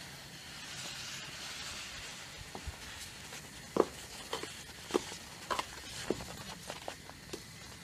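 Granulated sugar poured into a pot of boiling minced figs, heard as a soft hiss, followed by several sharp knocks and clinks.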